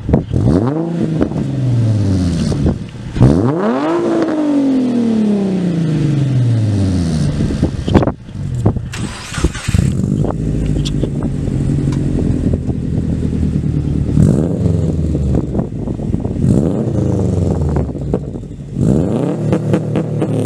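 A 2008 Nissan 350Z's V6 and a 2014 Subaru WRX's turbocharged flat-four revved in turn, one of them with its muffler deleted. Each rev climbs sharply and falls back to idle; the biggest comes a few seconds in, with smaller blips over a steady idle later on.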